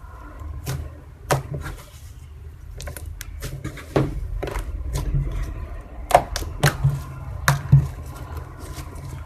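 Slime being squeezed and worked by hand, giving irregular sharp clicks and pops, several in quick succession in the second half.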